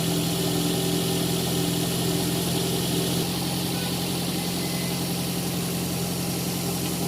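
Toyota Corolla engine idling steadily on a car being troubleshot for an idle problem.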